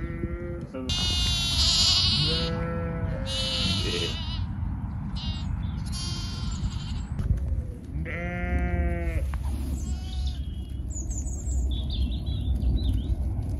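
Ewes and lambs bleating: a run of separate calls, some high-pitched and some lower, the loudest about eight seconds in.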